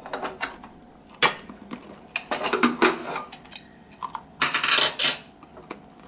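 Metal clanks and scrapes of a Hawkins pressure cooker's lid being unlatched and lifted off the pot, with a string of separate knocks and the densest clatter in the middle and near the end.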